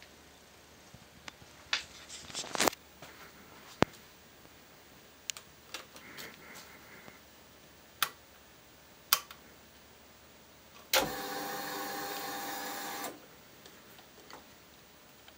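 Ducati Monster's electric fuel pump whirring steadily for about two seconds, starting about eleven seconds in, among scattered sharp clicks. The engine does not crank: the fuel system primes but the starter never turns the engine over.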